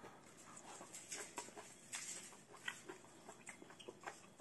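A person chewing a piece of braised chicken: faint, irregular small mouth clicks.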